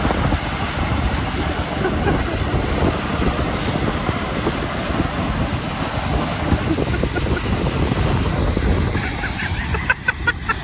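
Wind buffeting the microphone over machinery running steadily beneath it, with a few short sharp clicks near the end.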